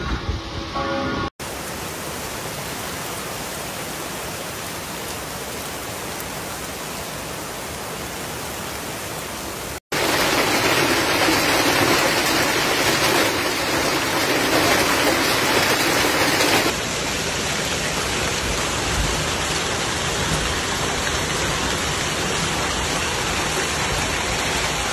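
Heavy storm downpour: a steady hiss of rain pelting down, heard in several clips joined by abrupt cuts, the middle one louder. At the very start, a pitched ringing from the previous clip fades out.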